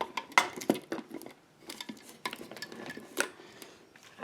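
Small metal lock parts being handled: a dozen or so light, irregular clicks and clinks of metal on metal.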